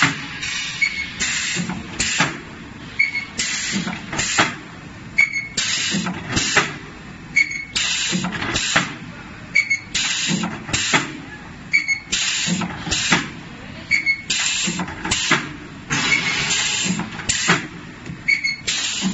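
Multi-spot welding machine for steel panel radiators cycling: its row of electrode heads clanks through each stroke with bursts of hiss, repeating about every two seconds.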